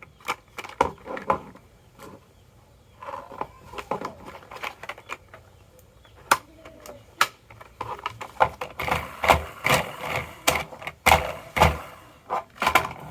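Marbles rolling and clattering down a wooden HABA marble run, a string of sharp clicks and knocks that thickens into dense rattling over the second half.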